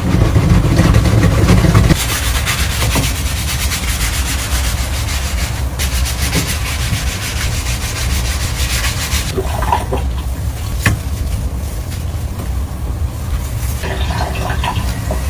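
Scrubbing: something rubbed hard and fast over a surface, giving a dense, scratchy noise for most of the first nine seconds, then lighter handling with a few sharp knocks.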